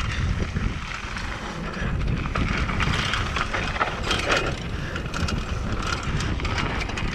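Mountain bike riding down a dry, dusty dirt trail: tyres rolling and scrabbling over loose dirt, with frequent rattles and knocks from the bike over the bumps.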